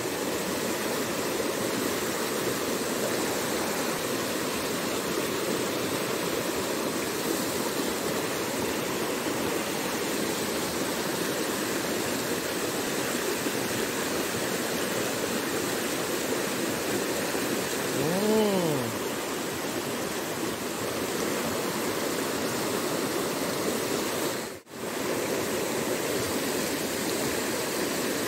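Steady rushing of a small rocky stream's white-water rapids. About two-thirds of the way in, a brief hummed note rises and falls in pitch over the water, and near the end the sound cuts out for an instant.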